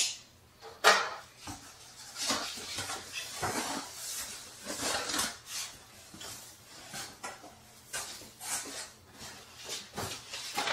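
Cardboard shipping box being opened by hand: flaps folded back and scraping, and the plastic-wrapped packing inside rustling, with a sharp knock about a second in.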